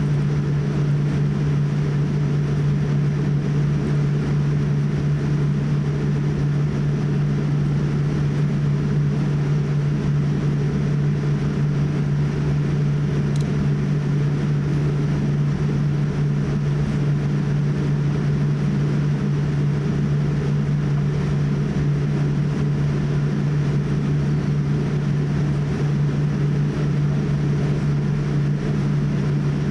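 Steady cabin noise inside a Boeing 787-8 airliner taxiing, with an even low hum and rumble that holds constant throughout.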